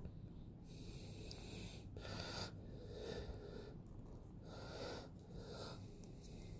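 A person breathing close to the microphone: soft, hissy breaths in and out, about one every second or two. Over them comes the low hum of a quiet room.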